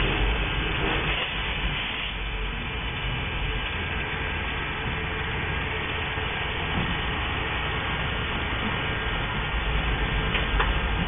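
Railroad turntable rotating with a locomotive on it: a steady low rumble and hum from the turning bridge and its drive.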